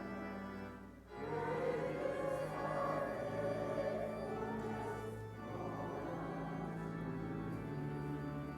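A hymn sung by voices over pipe-organ-style accompaniment, with held chords in the bass. There is a short break between phrases about a second in.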